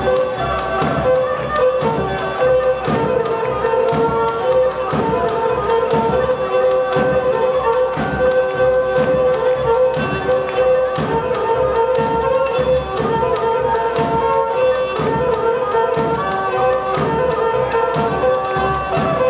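Live Pontic Greek folk dance music: a bowed, fiddle-like melody with sustained notes over a steady, regular drum beat.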